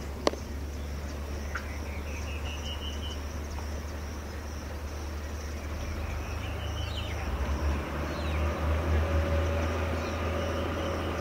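Outdoor grassland ambience: a steady high insect buzz, with two rising pulsed trills of a calling bird or insect in the first half. A sharp click comes just after the start, over a low wind rumble on the microphone that grows louder in the second half.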